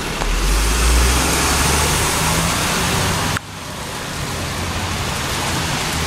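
Steady hiss of rain and wet-road traffic, with a low rumble of a passing vehicle in the first half that cuts off abruptly about three and a half seconds in.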